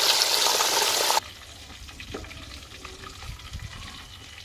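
Fish pieces half-frying in hot oil in a steel kadai: a loud, even sizzle that cuts off abruptly about a second in. After it there are only a few faint clicks over a low rumble.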